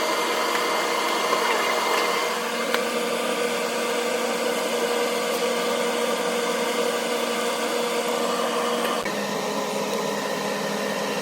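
A machine running steadily, a constant whine over a hiss; one of its tones drops out about nine seconds in.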